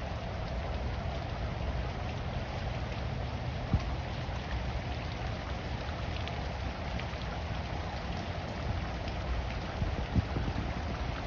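Steady rain falling, a continuous even patter, with a few louder single knocks of drops or taps, one about four seconds in and a couple near the end.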